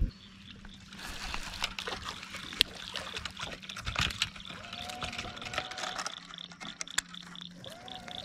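Water trickling and splashing lightly, with scattered light clicks and knocks.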